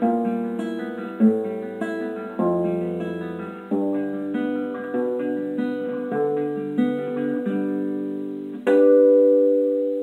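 Solo classical guitar played fingerstyle: a run of plucked melody notes over bass notes, ending with a loud chord near the end that rings out and slowly fades.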